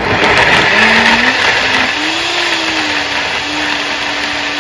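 NutriBullet blender switching on and blending roasted butternut squash and cream into a purée. The motor's whine climbs in pitch over the first two seconds, then holds steady as the mixture turns smooth.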